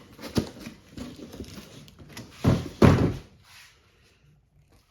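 Storage boxes being handled: a sharp knock, then two heavy thuds in quick succession about two and a half seconds in.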